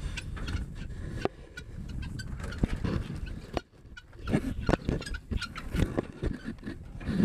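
Wheat pouring from a gravity grain wagon's chute into a plastic feed sack, with the sack rustling and knocking, briefly stopping about halfway through. Guinea fowl call around it.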